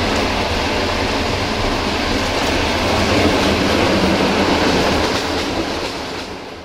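Steady running noise of a moving passenger train heard from inside the carriage: wheels rolling on the rails with a low rumble. It fades out near the end.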